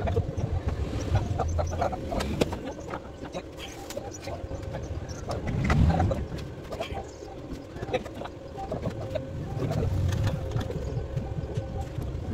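Scattered light knocks and clinks of a steel bumper being handled and lined up against a truck's front, with a louder bump about six seconds in. A bird calls in the background.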